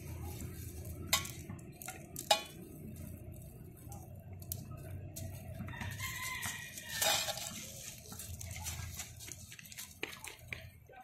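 Loose crushed gravel clattering and crunching as children move about on a stone pile, with scattered sharp clicks of stone on stone, the loudest about two seconds in.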